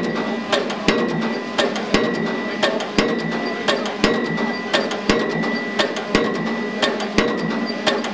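Pile-driving hammer striking a precast concrete pile, one sharp blow about every second as the pile is driven down, over the steady running of the piling rig and a steady high whine.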